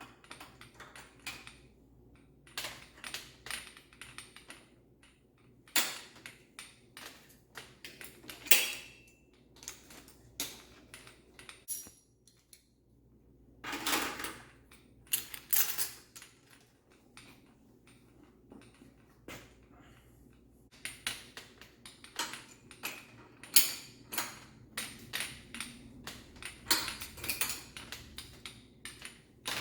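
Bicycle parts and hand tools being handled: irregular metallic clicks, taps and clinks, with a longer noisy sound lasting about a second near the middle.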